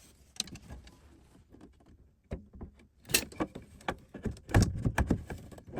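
Drawer box being set onto soft-close ball-bearing drawer slides: a few faint knocks, then from about halfway a quick run of sharp plastic and metal clicks and knocks, loudest near the end. These are the slide members seating and clicking into the drawer's locking tabs.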